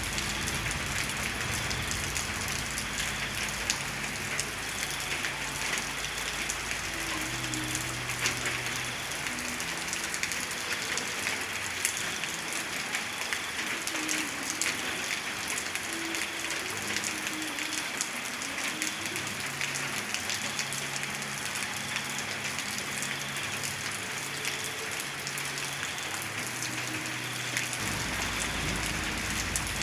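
Steady heavy rain falling, an even hiss peppered with the ticks of individual drops striking a surface. A low rumble sits underneath at the start and comes back near the end.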